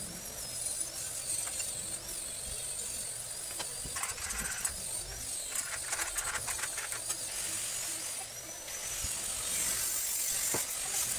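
Arc welding on galvanized steel tube: a dense crackling hiss of the arc that starts about three quarters of the way in and carries on. Before it come scattered metallic clicks and knocks as the crosspiece is handled and fitted.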